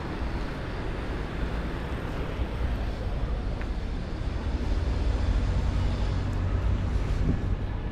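City street ambience: a steady rumble of passing traffic that grows louder about halfway through.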